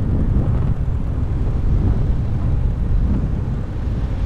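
Motorcycle engine running at low speed, heard from the rider's position as a steady low rumble mixed with road and wind noise.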